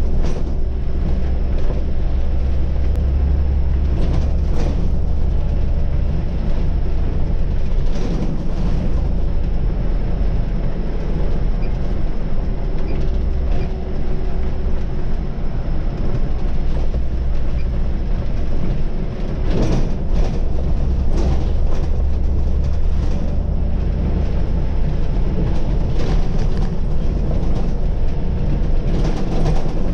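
Scania city bus driving, heard from the driver's seat: a steady low rumble of engine and road, with short knocks and rattles now and then, more of them in the second half.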